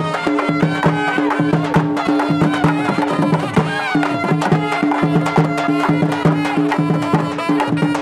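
Traditional South Indian folk music: fast, dense hand-drumming with a melody line over a steady low drone.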